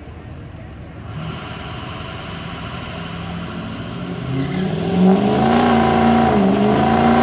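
Engines of two street-racing vehicles, a Ford turbo diesel pickup among them, accelerating hard and coming closer. The engine note climbs in pitch and grows much louder, then drops briefly and climbs again about six and a half seconds in.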